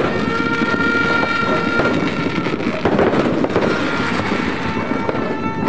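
Dense, continuous crackling and popping of firecrackers and fireworks, loud throughout. Over it, long steady horn blasts sound one after another at a few different pitches, each held for a second or two.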